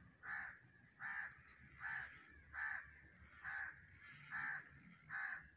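A bird calling the same short note over and over, about seven evenly spaced calls, a little more than one a second.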